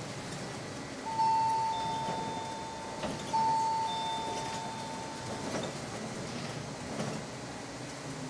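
A city bus's electronic two-note ding-dong chime sounds twice, about two seconds apart, each ringing out and fading, over the steady hum of the bus in motion.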